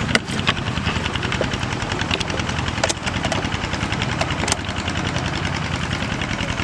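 A small engine running steadily, a low even hum, with a few sharp clicks and knocks from the plastic bottle trap being handled.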